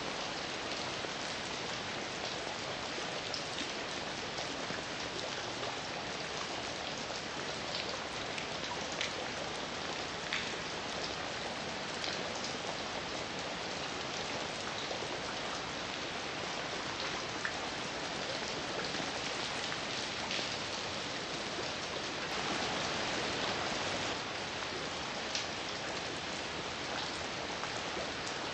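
Heavy rain falling steadily, with individual drops ticking sharply here and there. The rain swells a little louder for a couple of seconds about two-thirds of the way through.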